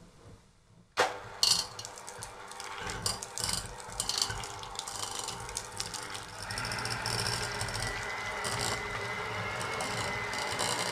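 Electric hand mixer switching on about a second in and beating a block of softened butter in a stainless steel pot, its wire beaters clattering and scraping against the metal. From about halfway on the motor runs more steadily with a faint whine as the butter breaks up.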